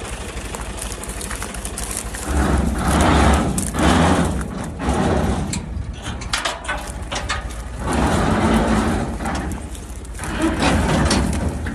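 Alghazi tractor running a wheat thresher machine, with a steady low engine hum under it. Louder rushing surges swell up three times, along with scattered clicks and rattles.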